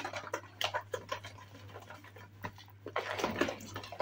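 A spoon stirring flour in a plastic mixing bowl: irregular soft scrapes and taps, getting busier about three seconds in.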